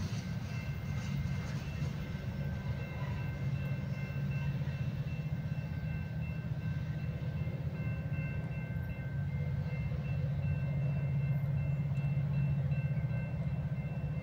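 Freight train rolling past on the rails: a steady low rumble of cars and wheels that swells slightly near the end, with faint steady high-pitched tones above it.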